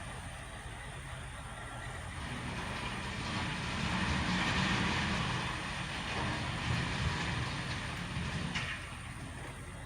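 Backhoe working gravel: its diesel engine rumbling with the scrape of stones under the bucket, swelling louder for a few seconds in the middle and then fading back.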